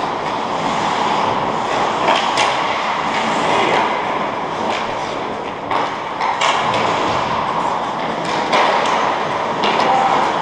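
Ice hockey play on a rink: a steady scraping noise of skates on the ice, broken every second or so by sharp clacks and thuds of sticks, puck and boards.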